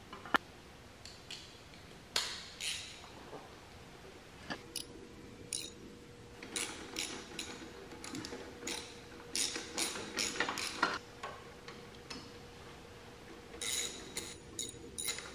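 Light metallic clicks and taps from a steel brake linkage rod and clevis being handled and fitted on a Kubota B5100 tractor's rear axle. One sharp click comes about a third of a second in, and the clicking grows denser and more frequent in the second half.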